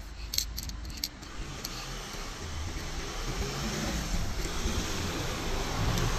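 A passing car, its road noise building and loudest near the end, with a few small clicks and rattles in the first second.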